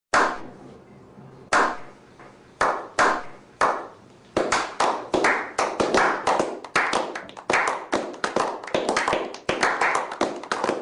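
A series of sharp impacts, each with a short ringing tail, spaced about a second apart at first and coming faster, two or three a second, in the second half.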